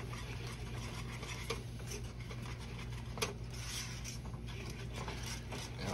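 Wire whisk stirring thick, cheesy yellow corn grits in a metal saucepan, scraping and rubbing against the pot, with a couple of sharp clicks where the whisk taps the pan. A steady low hum runs underneath.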